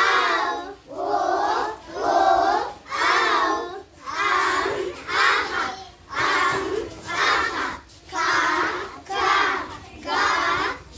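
A group of young children chanting together in unison, loud short phrases about once a second in a steady rhythm, as in a classroom action song or exercise drill.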